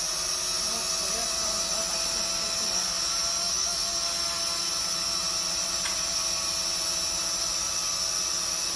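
IDEA10 GPS quadcopter hovering, its four electric motors and propellers whirring in a steady high whine.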